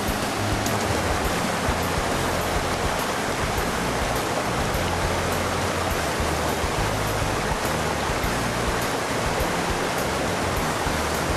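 Steady rush of a waterfall, with background music underneath whose low bass notes shift every second or so.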